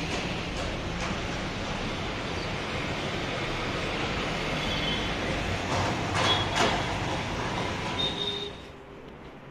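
Steady road traffic noise of passing cars and motorbikes, with a louder swell of a vehicle going by about six seconds in; it drops away shortly before the end.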